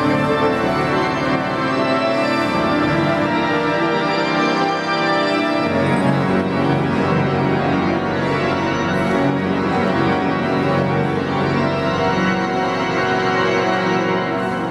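Pipe organ playing sustained, many-voiced chords, with the harmony shifting to new, lower bass notes about six seconds in.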